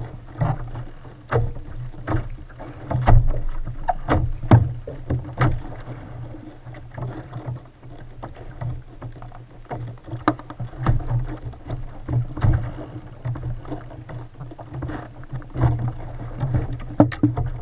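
Choppy sea slapping and knocking against a kayak's hull in uneven, sharp hits, over a steady low rumble.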